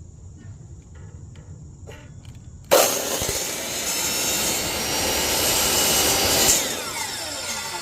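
Power miter saw starting suddenly about two and a half seconds in and cutting through an acrylic sheet with a loud, harsh, steady noise. Near the end it eases off and the blade winds down with a falling pitch.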